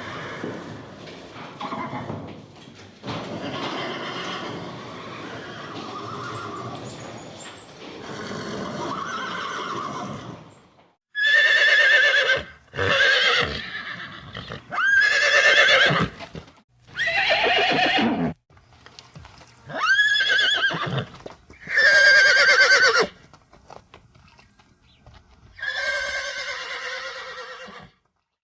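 A horse: first about ten seconds of rough, noisy sound without clear pitch, then a series of about seven whinnies, each a second or two long with a shaky, wavering pitch.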